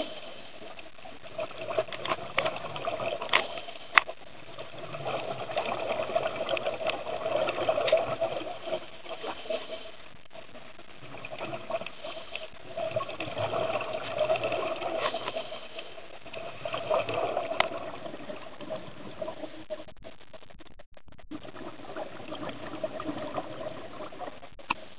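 Underwater water noise with crackling bubbles, swelling and easing in slow cycles every five or six seconds, with a few sharp clicks.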